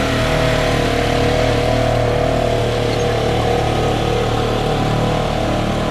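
Polaris Ranger side-by-side's engine running steadily as it drives along pulling a loaded manure spreader: a constant drone with a steady whine on top.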